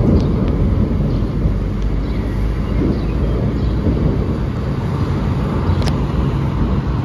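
Thunder rumbling low and steady from a thunderstorm, easing slightly near the end, with one faint click about six seconds in.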